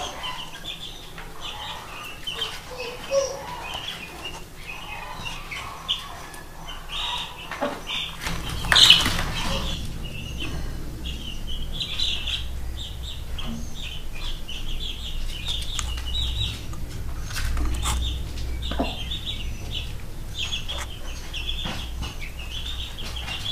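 Young chicks peeping, a steady run of short, high chirps. There is a loud, brief rustle about nine seconds in, and a low hum under the second half.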